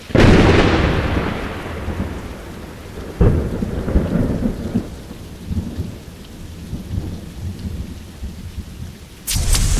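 A sudden crack of thunder rolling away over a couple of seconds, a second rumble about three seconds in, and steady rain throughout. Music starts abruptly near the end.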